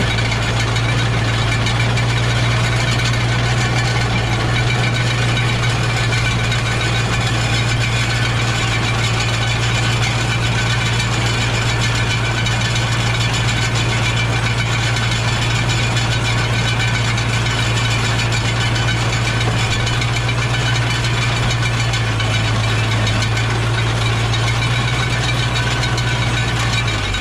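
Tractor engine running steadily at working speed while driving a hay baler: a constant low drone with an even mechanical rattle over it.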